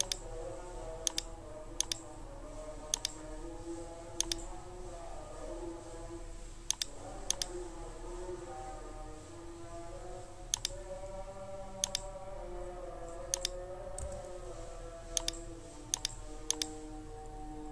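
Computer mouse clicking: about fourteen sharp clicks at uneven intervals, each a quick pair of button press and release, as menu items and dialog buttons are clicked.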